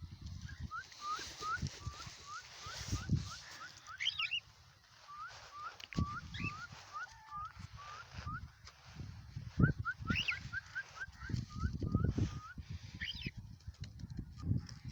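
Cockatiels calling: runs of short rising chirps, about three a second, broken by a few louder, higher-pitched calls. Irregular low rumbling thumps run underneath.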